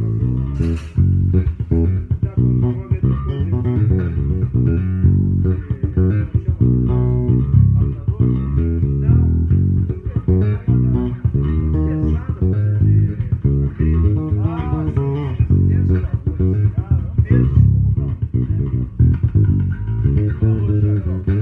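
Five-string electric bass being played in quick, continuous runs of plucked notes, with a sharp snapped note about a second in. It is a store instrument that has not been set up for string height, so its notes don't quite stay in tune.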